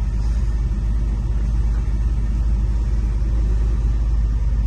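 1995 Porsche 911 Carrera's air-cooled 3.6-litre flat-six idling steadily at about 800 rpm, a low even rumble heard from inside the cabin.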